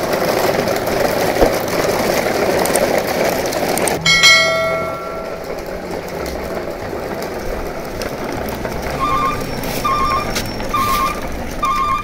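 A steady rushing noise, then a single bell-like chime about four seconds in that rings and fades, and near the end a run of short, evenly spaced beeps.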